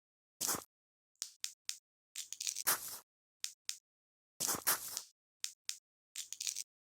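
Dry forest leaves and twigs crunching and snapping in a string of short crackling bursts, about seven in all, each cut off to dead silence. The cuts between them mark separate edited foley takes.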